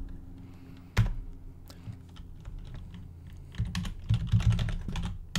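Typing on a computer keyboard: a single key press about a second in, the Enter key running a command, then a quick run of keystrokes near the end as the next command is typed.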